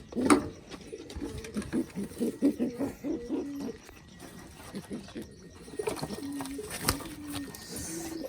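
Domestic pigeons cooing, a run of short low coos, with a sharp click about seven seconds in.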